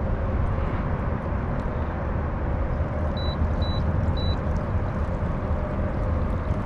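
Electric trolling motor of an Old Town kayak running steadily with a low hum, mixed with wind rumble on the microphone; the owner suspects grass in the prop. Three short high beeps sound about halfway through.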